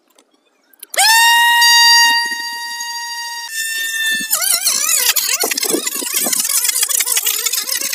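Small toy DC motor with a plastic propeller starting up about a second in with a loud, steady, high whine. About halfway through the whine wavers up and down under a spattering, splashing noise as the propeller churns water.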